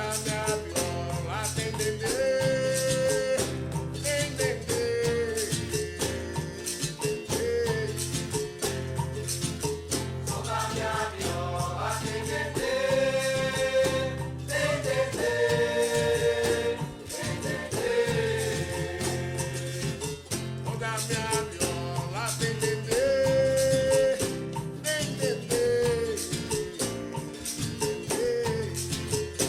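Capoeira song: voices sing long held lines over a steady, even percussion rhythm with tambourine-like jingles and shaker, over a low drone.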